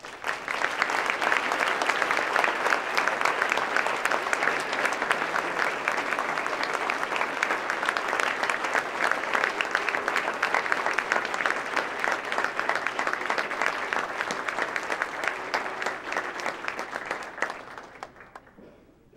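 Audience applauding: many hands clapping steadily. It starts suddenly and dies away near the end.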